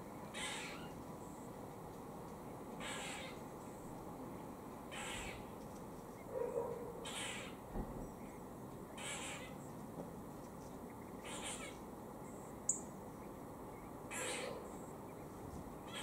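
Grey squirrel giving its warning call: a short, raspy call repeated seven times, about every two seconds.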